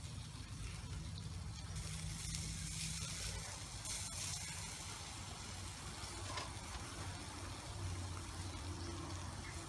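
Skewered intestine pieces sizzling on a wire grill over hot coals as they are brushed with basting liquid, a soft steady hiss over a low hum.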